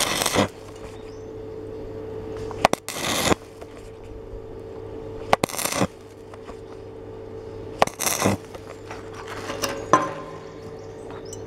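Stick welding arc struck in short bursts on thin 2.2 mm steel to fill a hole: four crackling bursts of about half a second each, roughly every two and a half seconds, and a fainter one near the end. A steady hum runs underneath.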